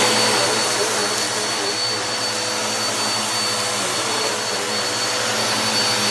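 Vacuum cleaner running steadily: a constant motor noise with a thin high whine held over it.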